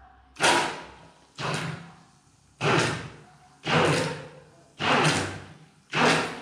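Handheld immersion blender pulsed in a small bowl of liquid: six short whirring bursts about a second apart, each starting suddenly and dying away quickly.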